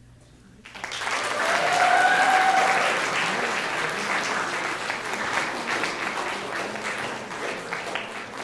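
Audience applauding, breaking out suddenly under a second in after a short quiet and carrying on steadily, with a brief cheer near the start.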